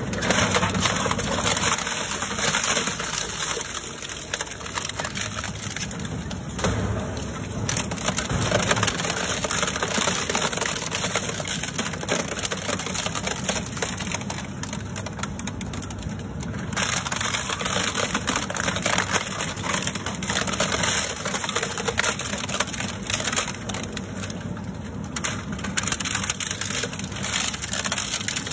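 Twin-shaft shredder's toothed cutter discs tearing through a sheet-metal appliance casing and plastic parts: continuous dense crunching and cracking, briefly easing off three times.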